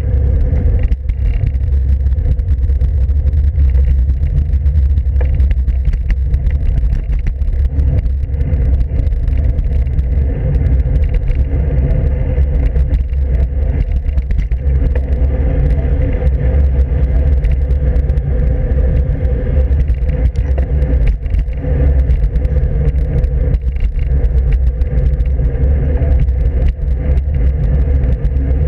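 Steady low wind and road rumble on a handlebar-mounted camera's microphone while riding a road bicycle.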